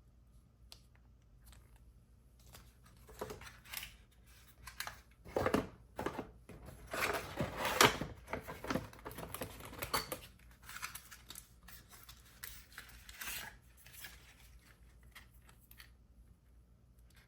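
Box packaging and its contents being handled: irregular rustling, light knocks and clicks, busiest and loudest in the middle and thinning out towards the end.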